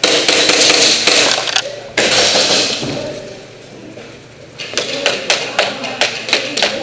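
Gas-blowback airsoft gunfire with BBs smacking plywood barriers. Dense noise fills the first few seconds, then after a short lull comes a rapid string of sharp cracks and knocks, several a second.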